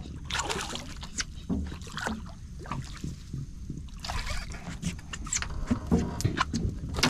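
Scattered knocks and clicks of gear being handled in a small fishing boat, over a steady low rumble.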